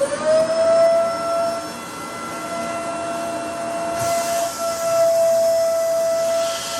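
A motor-driven tool spinning up to speed in a fraction of a second, then running with a steady high whine; a hiss joins it about four seconds in.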